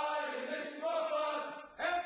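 A group of men chanting a marching cadence in unison, with a short break near the end before the next line begins.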